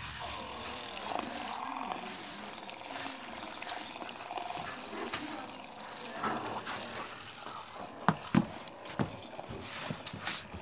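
Homemade mini grinder, a small DC motor spinning a plastic disc, running with the disc scraping against a hard surface, a rough, uneven grinding noise. A few sharp knocks come about eight to nine seconds in.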